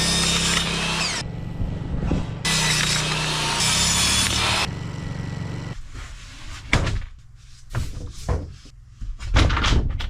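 A power saw cutting wooden boards into shorter pieces: two cuts, one about a second long and a longer one of about two seconds, each with the motor running under load. Several separate knocks of wood follow in the second half.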